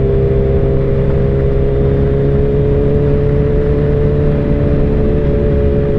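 Sport motorcycle engine running at a steady cruise, an even drone that holds one pitch with no revving or shifting, under a steady rush of wind noise.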